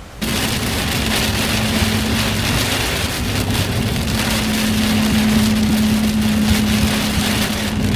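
Vehicle driving: a steady low hum under a loud, even hiss, typical of tyre and rain noise. It starts abruptly a fraction of a second in.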